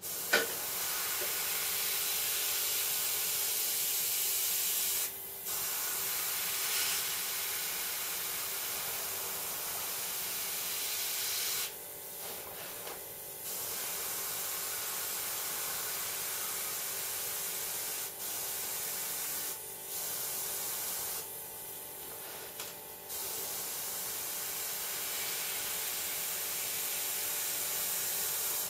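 Gravity-feed airbrush hissing steadily as it sprays paint, the airflow stopping and restarting several times, with one longer break about halfway through.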